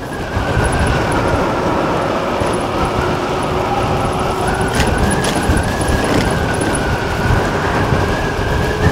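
Will Mason T1S electric moped ridden at speed: wind rushing over the microphone, with a faint high whine from the electric drive that rises slowly in pitch.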